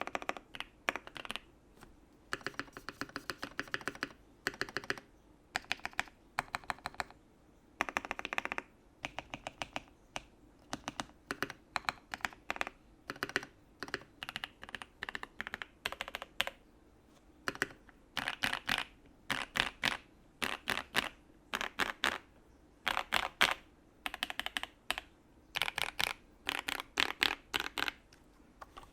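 Typing on a U80-A SEQ2 mechanical keyboard with a brass plate, lubed and filmed switches, PE foam fitted and sorbothane in the case: quick runs of keystrokes in bursts with short pauses between them.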